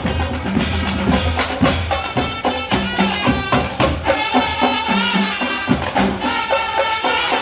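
Marching band playing: drums beating a steady rhythm under held, wavering melody notes.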